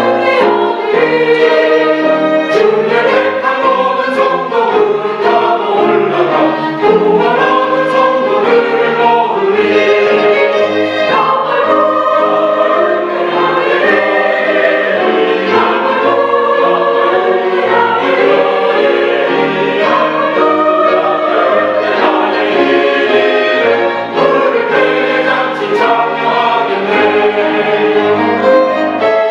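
Mixed church choir singing a hymn, accompanied by a small group of violins.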